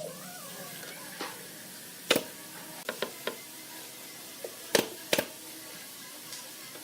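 Several sharp knocks at irregular intervals: a loud one about two seconds in, a few fainter taps around three seconds, and two loud knocks close together near five seconds, over a steady background hiss.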